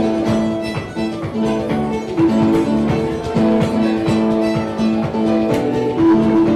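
Live contra dance band playing a tune: fiddle melody over guitar chords with a steady dance beat.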